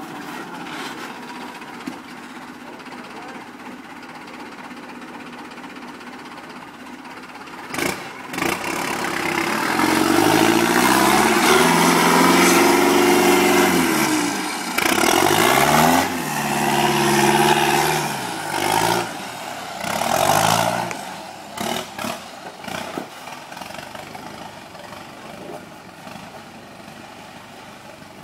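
Cummins 4BT four-cylinder turbo diesel in a Jeep YJ, idling steadily, then revved hard under load as the Jeep crawls up a rock ledge. The pitch climbs and falls in three long sweeps before settling back to idle.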